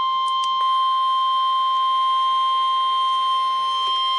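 NOAA Weather Radio warning alarm tone, a single steady 1050 Hz tone, sounded as the weekly test of the warning alarm.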